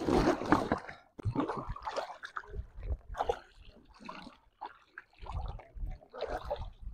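Water splashing and sloshing in uneven bursts, with a few low thuds near the end.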